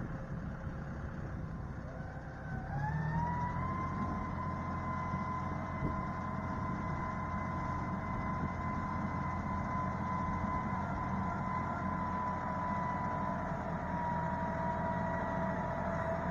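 Utility tractor with front loader working at a distance: a steady engine drone with a high whine that rises about three seconds in and then holds steady as the tractor works.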